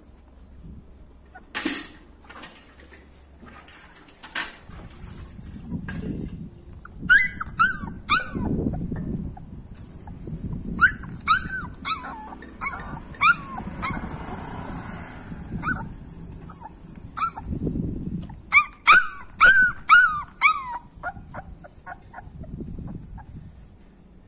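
Labrador puppy whimpering and yipping in short, high cries that fall in pitch, in three runs of several cries each.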